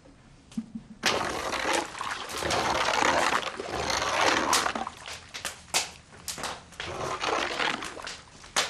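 Water splashing and pouring at a steaming dye vat: a continuous rush of water from about a second in, giving way to scattered splashes and knocks.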